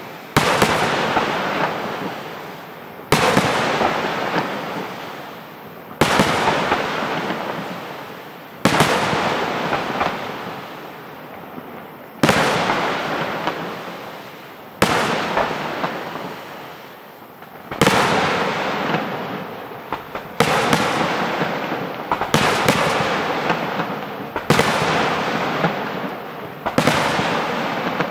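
Aerial firework shells bursting one after another, with a sharp bang every two to three seconds. Each bang is followed by a long fading crackle as the gold stars burn out.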